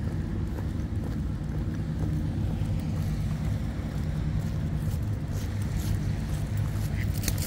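Steady low drone of a motorboat engine out on the water, with a brief rattle near the end.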